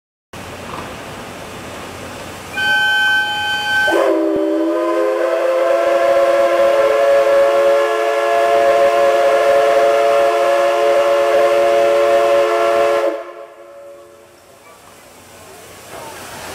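Steam whistle of the C57 180 steam locomotive sounding one long chord-like blast of about nine seconds, several pitches together, with a slight downward slide as it opens. It is preceded by a short, higher-pitched toot, and after the whistle stops there is a quieter hiss of steam.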